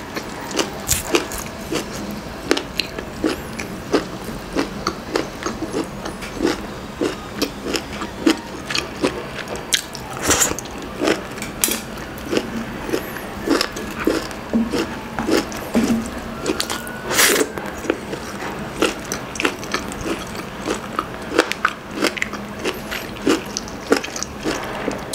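Close-miked chewing and biting of grilled chicken inasal: wet mouth sounds and sharp crunchy clicks about twice a second, with a few louder bites.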